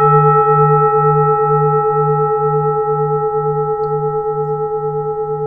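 A struck bell ringing on after a single strike and slowly fading. It holds one deep chord of steady tones, with a slow wavering beat about twice a second.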